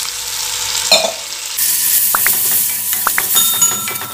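Onion and spice masala sizzling in a hot iron kadai just after water is poured in. A wooden spatula stirs and scrapes against the pan in the second half.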